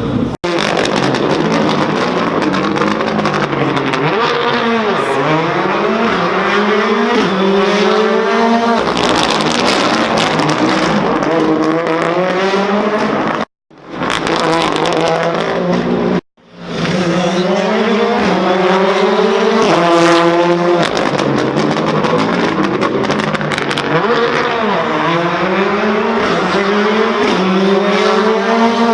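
Rally car engines accelerating hard through the gears, the revs climbing and dropping back at each upshift over several runs, with pops and crackles from the exhaust. The sound cuts out briefly twice near the middle.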